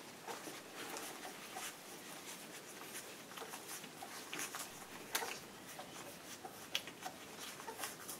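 Whippet puppies suckling at their mother: irregular smacking and clicking sounds, with a few louder clicks.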